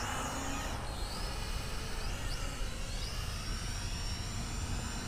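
Wind rumbling on the microphone, with faint high whines that glide up and down in pitch, like the small electric motors of radio-controlled aircraft flying nearby.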